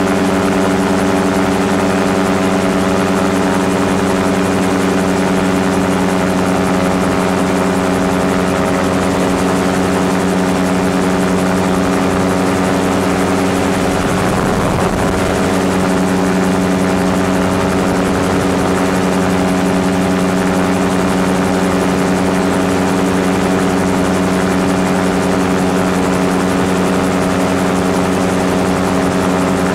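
Gyrocopter engine and propeller running steadily in flight, heard from a camera on the landing-gear leg; the tone wavers briefly about halfway through.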